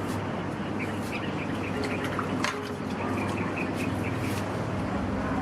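Birds chirping, a quick run of short high notes through the middle, over a steady low hum with a few sharp clicks.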